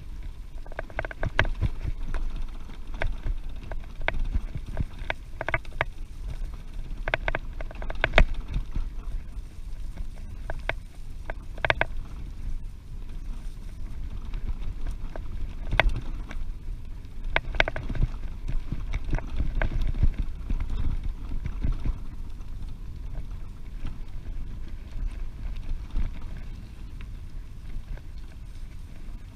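Wind rumbling on the microphone while cycling, a steady low buffeting, with scattered sharp clicks and knocks, most of them in the first twenty seconds.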